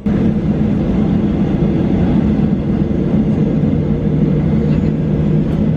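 Boeing 737-800's CFM56 jet engines running at takeoff power, heard from inside the cabin as a loud, steady rumble with a low hum running through it.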